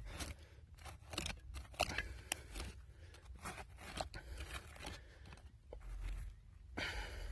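Digging in dirt to free a buried bottle: a quick run of short scrapes and crunches, uneven, with no steady sound.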